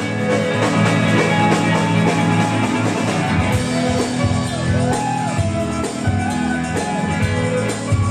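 Rock band playing live, with guitar prominent over a steady bass and drum backing.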